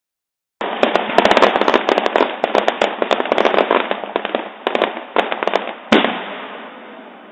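Fireworks going off in a rapid crackling string of dozens of sharp pops, with one loud bang about six seconds in and a fading crackle after it.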